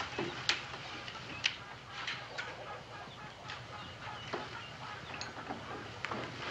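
Barn ambience of chickens clucking in short scattered calls, with light knocks and rustles of handling over a low steady background.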